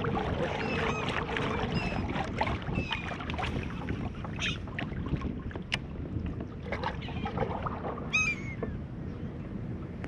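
Wind on the microphone and water moving around a kayak hull, with scattered small clicks and knocks from tackle in the first half. A bird calls briefly about eight seconds in.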